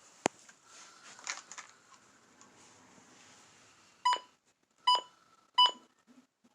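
A sharp click, then three short high electronic beeps, evenly spaced less than a second apart, from emergency alert receiving equipment.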